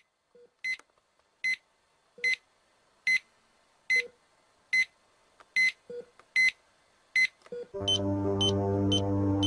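Electronic alarm-clock-style beeping: a short, sharp beep about every 0.8 s, ten in all, with faint lower blips between them. About 8 s in, a song's backing music comes in with a heavy bass line and chords, and the beeping carries on over it, faster and higher.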